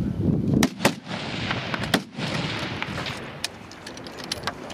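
Hunting rifle shots on an open range. Two sharp cracks come close together under a second in, and a third comes about two seconds in. Fainter cracks follow later.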